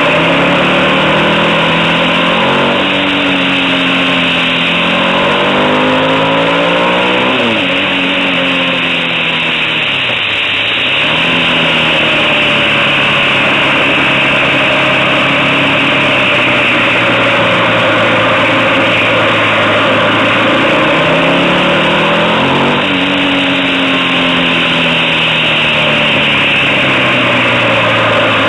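Motorcycle engine running hard along a twisting mountain road, its pitch climbing and falling with the throttle through the bends, with a sharp drop about seven seconds in and a deep dip near ten seconds. A steady hiss runs under it.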